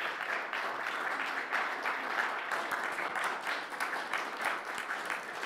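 Audience applauding with many hands clapping at a steady level.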